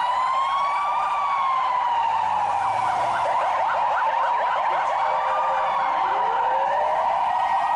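Several ambulance sirens sounding at once: a slow rising-and-falling wail overlapping a fast yelp of about three or four chirps a second, over a steady high tone.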